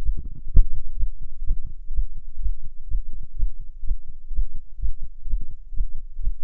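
Human heartbeat recorded up close: evenly spaced low thumps at about two a second over a steady low hum, with one sharper knock about half a second in.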